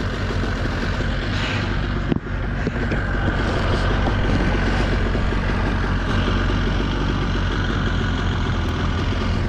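Mercury outboard motor idling steadily while it warms up, after sitting unused for about a week. A brief knock about two seconds in.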